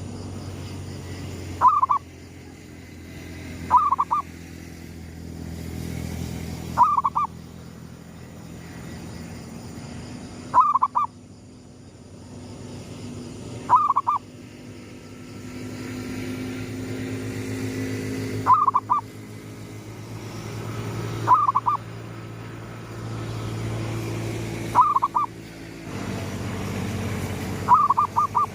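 Zebra dove (perkutut) cooing in short, quick-stuttered phrases, nine times at intervals of about three seconds, over a steady low rumble.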